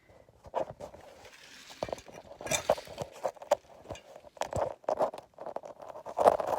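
Hand tools and metal brake parts knocking and clinking irregularly, with a string of short taps and a few heavier thuds.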